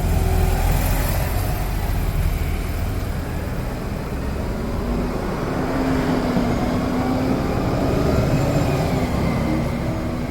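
Street noise of motor vehicle engines running: a heavy low rumble in the first couple of seconds, then a wavering engine hum through the second half.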